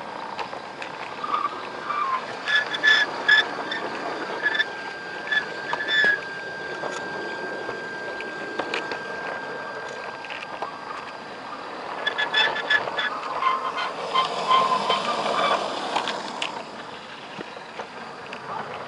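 Garden-scale model train running along its outdoor track, heard from on board the wagon: a steady rolling rattle with many sharp clicks of the wheels over the rail joints, and a steady high whine through the first half.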